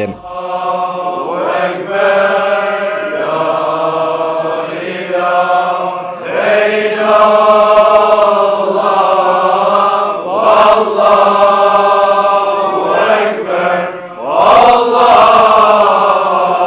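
Sufi dervishes of the Sadi order, a group of men's voices, chanting a devotional chant together in long drawn-out phrases. Each new phrase begins with a rising swoop, about every four seconds.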